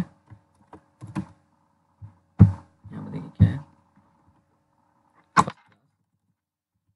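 Computer keyboard keys struck one at a time in a handful of separate thuds, the last and sharpest about five seconds in.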